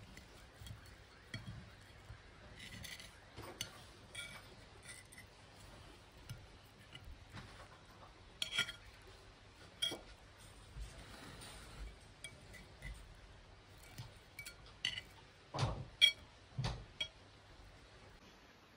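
Metal knife and fork clinking and scraping on a ceramic plate as an omelette is cut into pieces. Scattered light taps, with a few louder clinks near the end.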